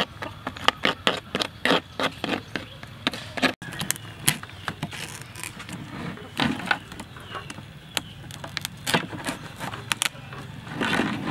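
A metal spoon scraping the inside of a horseshoe crab shell in quick, clicking scrapes, then, after a break about three and a half seconds in, a knife scraping and clicking against the hard shell of another horseshoe crab as it is cut open.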